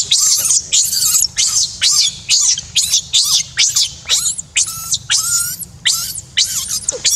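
Baby macaque screaming in a fast run of shrill, falling cries, about three a second, while its mother grips it and holds it down.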